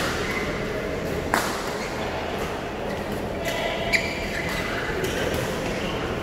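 Badminton racket strings hitting a shuttlecock during a doubles rally: two sharp hits about two and a half seconds apart, echoing in a large hall, over the steady background noise of play on other courts.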